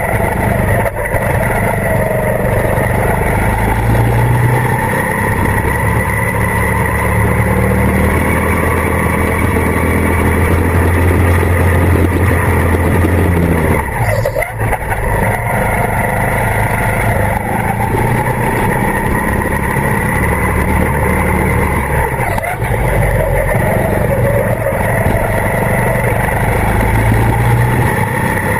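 Go-kart engine running hard, heard from on board the kart, with a steady low drone whose pitch rises and falls with the revs. It drops off briefly about halfway through and again a little later as the kart slows for corners, then picks up again.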